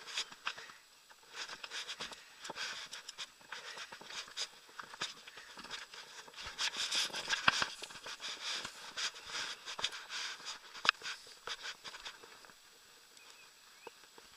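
Irregular rustling and clicking handling noise as the angler moves with the rod along the grassy bank, busiest in the middle, with a few sharper clicks and tapering off near the end.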